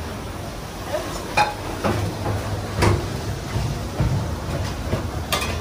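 Restaurant kitchen clatter: a few sharp knocks and clinks of dishes and pans over a steady low hum of kitchen equipment.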